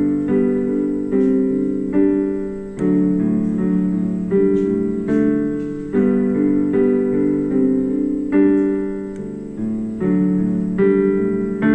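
Piano-sound keyboard playing a slow introduction to a worship song, one chord struck about every second and left to fade.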